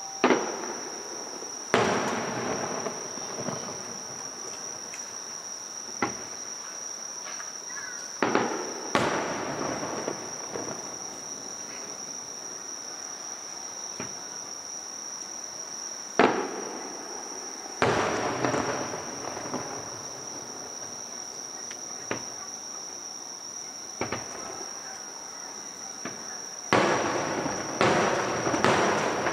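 Aerial fireworks shells bursting: about a dozen sharp booms at uneven intervals, several trailing off in a long rumble, with a quick cluster of bursts near the end. A steady high insect chirring, typical of crickets, sits under the booms.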